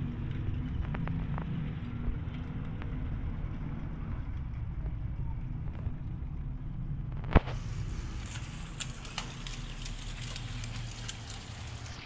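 Low engine rumble of a motor vehicle running, with one sharp click about seven seconds in, followed by scattered crackling.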